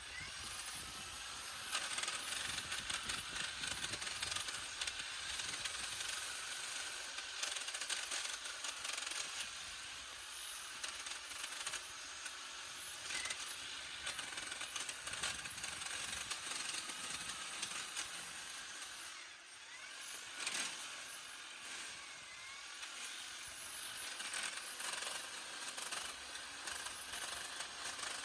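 EGO battery multi-tool's hedge trimmer attachment running, its reciprocating blades cutting through thick woody hedge stems with many sharp clicks and snaps.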